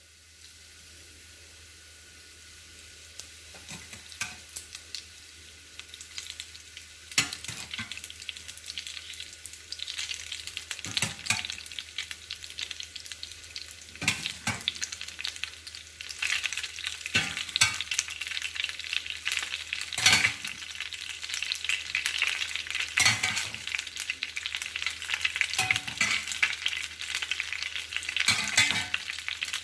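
Food sizzling and crackling in a frying pan, getting louder from about seven seconds in. A utensil strikes or scrapes the pan every few seconds as the food is stirred.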